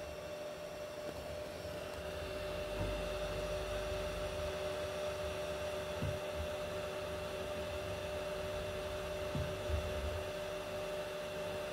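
Anycubic Kobra 3 3D printer probing its bed during auto-leveling: a steady hum and whine from its motors and fans. A low rumble swells from about two seconds in, and there are two faint taps later on.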